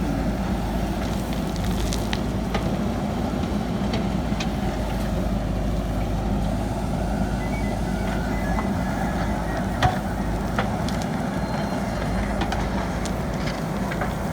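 JCB backhoe loader's diesel engine running steadily under work, a constant low rumble, with a few sharp clicks and knocks, the loudest about ten seconds in.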